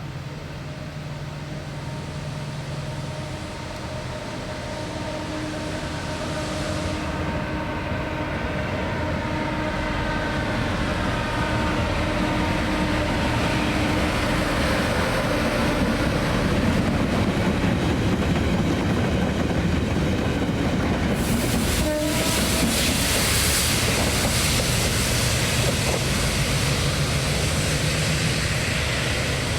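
A train approaching and passing through a station, growing steadily louder with a steady whine, then a sudden louder rush of wheel and rail noise about two-thirds of the way in as it passes close.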